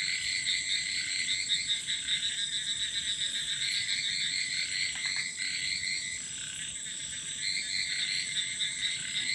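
Crickets chirping at night: a steady high-pitched trill under rapid pulsed chirping phrases, which drop away about six seconds in and start again a moment later.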